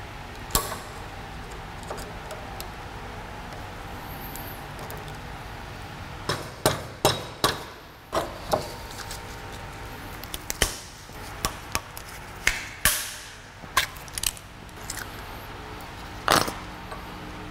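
Sharp metallic clinks and taps of hand tools working on a steel suspension part clamped in a bench vise, in scattered strikes, some ringing briefly, over a steady shop hum.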